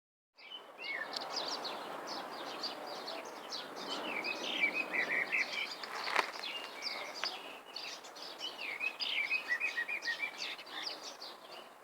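A chorus of several birds chirping and trilling in quick, overlapping short notes over a steady background hiss. A single sharp click sounds about six seconds in.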